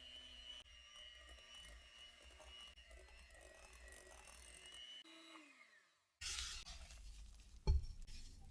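Electric hand mixer running steadily while mixing cookie dough, then switched off and winding down with a falling whine about five seconds in. A short rough scraping noise and a sharp clack follow near the end.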